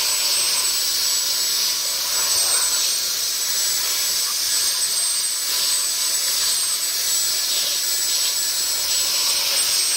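Cordless handheld vacuum cleaner running steadily with a thin high whine over its rushing air, its long crevice nozzle held in a shoe to suck out bicarb soda.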